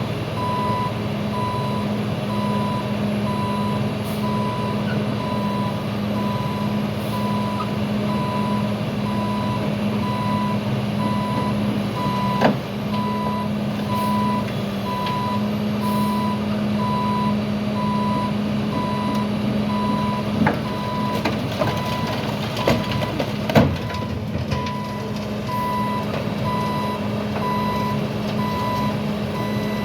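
Heavy machine's engine running steadily while its backup alarm beeps about once a second. A few sharp knocks cut in, one about twelve seconds in and a cluster near the end, the loudest about 23 seconds in.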